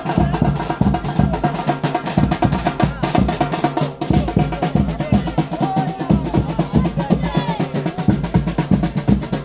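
Loud procession music with fast, steady drumming, the strokes coming many to the second over held pitched notes.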